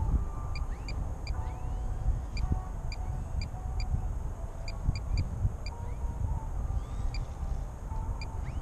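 Wind buffeting the microphone with a steady low rumble, while small birds chirp repeatedly and give short whistled calls in the background.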